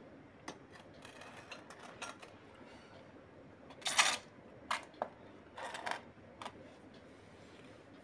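Light clicks and knocks of tableware, plates and a plastic water jug, being handled and set down on a wooden board. The loudest clatter comes about halfway, followed by a few smaller knocks.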